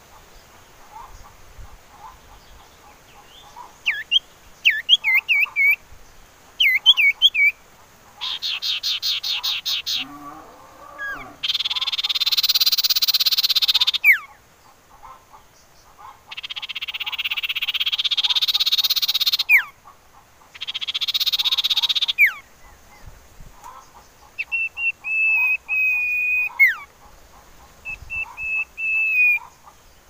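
Common iora singing: a run of sharp whistled chirps, a rapid trill, then three long harsh churring phrases that each end in a falling whistle, and near the end two held whistled notes.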